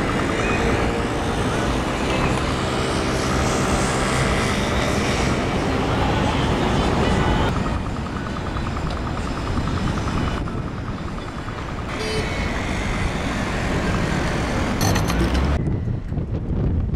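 Street traffic noise with a vehicle engine running, in pieces that cut abruptly from one to the next several times.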